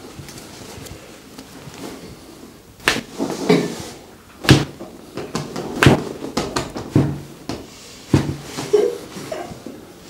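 A series of sharp clicks and soft knocks from a chiropractor's hands gripping and mobilizing bare feet and ankles, beginning about three seconds in and irregularly spaced about a second apart, over a low handling rustle.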